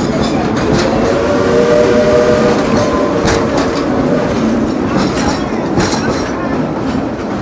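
Passenger cars of the Dollywood Express, a narrow-gauge steam railway, rolling past: a steady rumble of wheels on rail with irregular sharp clicks as the wheels cross the rail joints. A faint drawn-out squeal runs from about one to four seconds in.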